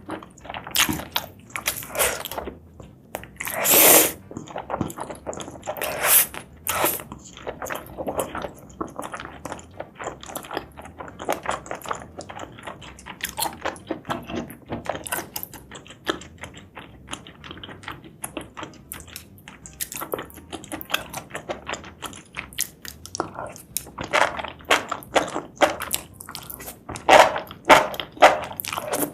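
Close-up mukbang eating sounds: a person chewing and biting into spicy seafood and mushrooms, making many short, crisp mouth clicks and smacks. A louder, longer burst comes about four seconds in.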